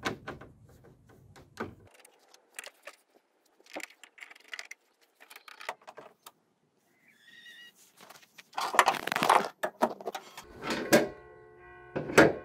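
Screwdriver and plastic front grille of a VW T4 van being handled: scattered clicks, scrapes and knocks as the grille screws are turned, with a louder clatter about two-thirds of the way through. Music comes in near the end.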